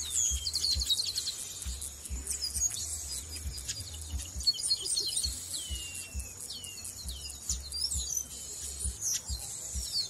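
Chestnut-capped blackbirds singing and calling: a fast high trill about half a second in, then a run of falling whistles and sharp high chips, with more than one bird calling at once.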